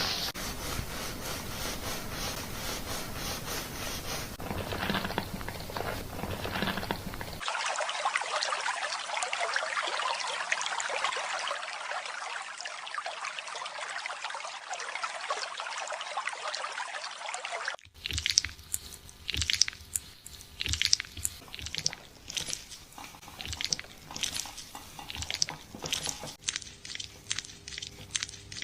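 Hair-washing sounds during scalp care: first a fine, rapid rustle of fingers scratching through the hair, then, after a sudden cut about seven seconds in, a steady rush of water rinsing the hair for about ten seconds. After another cut, irregular crisp crackling of wet, lathered hair being worked by hand.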